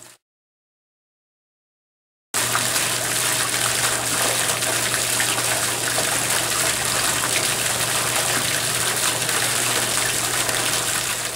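Silence for about two seconds, then a fountain's vertical water jet starts in suddenly: a steady rush of spraying water splashing back down into the pool, with a steady low hum underneath.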